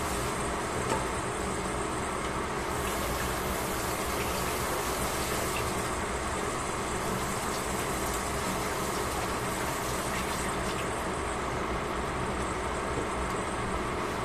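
Beef sizzling steadily in a covered pan: a constant frying hiss with the odd faint pop.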